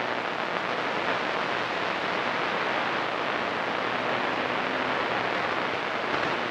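Steady hiss of static from a CB radio's speaker on an open channel, with no station coming through clearly.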